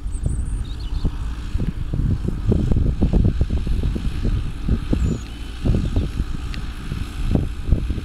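Ford 7610 tractor's four-cylinder diesel engine pulling a three-furrow plough under load, with an uneven, gusty rumble of wind on the microphone.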